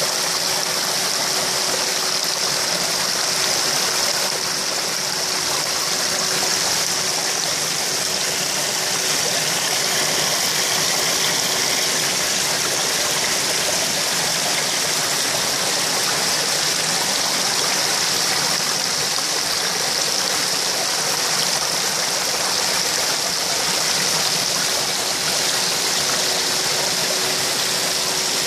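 Steady rush of water pouring and splashing into a koi pond, aerating the surface into bubbles and foam, with a faint steady hum underneath.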